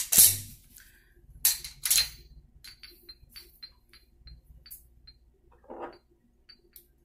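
Metal tools and chrome plumbing parts being handled and set down: a sharp clack at the start, two more about a second and a half and two seconds in, then a run of light metallic clinks and ticks and a brief rustle near the end.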